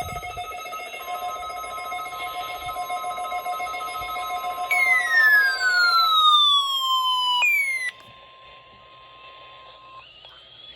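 Weather radio alert test tones: steady electronic alert tones sound together, with a loud falling sweep about five seconds in that starts over once. Near eight seconds they cut off abruptly, leaving a faint steady tone that stops about two seconds later.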